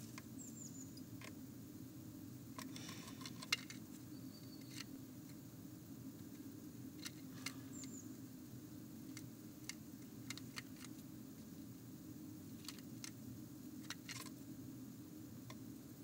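Blue tit moving about inside a wooden nest box: scattered scratches and clicks of its claws on the wood, with two short high chirps near the start and about halfway through. A steady low hum runs underneath.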